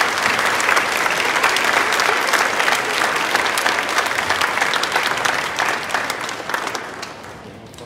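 Audience clapping: dense applause that thins out and fades near the end.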